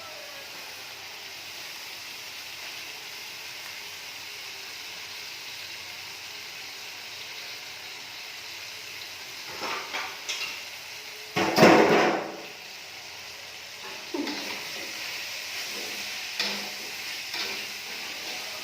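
Spice paste of shallot, garlic and spices sizzling as it sautés in hot oil in a pan, stirred now and then, with a louder knock or clatter about twelve seconds in. It is frying until fragrant, just before the chicken goes in.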